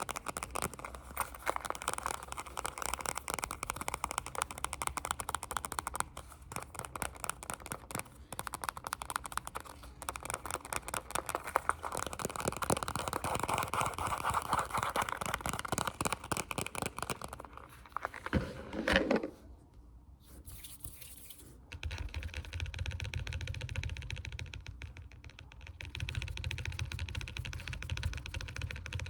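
Close-miked ASMR fast tapping: a rapid, continuous patter of fingertip and nail taps. About two-thirds of the way in there is a brief swishing rub and a short lull, after which the tapping returns with a duller, deeper tone.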